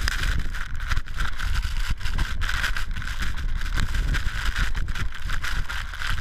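Avalanche powder-cloud blast buffeting the microphone: a loud, gusting rumble with a hiss over it.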